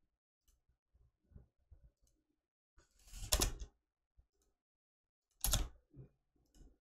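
A few scattered computer mouse clicks, made while placing points for digitized line work. Two louder ones come about three and five and a half seconds in, with fainter ones between.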